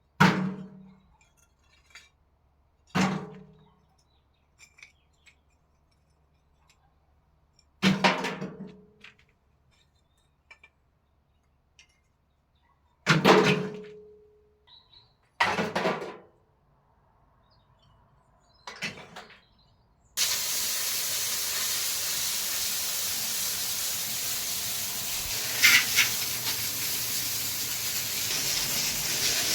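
About six separate sharp knocks and clinks of roof repair work, a few seconds apart, each ringing briefly. About twenty seconds in, a steady hiss starts suddenly and runs on.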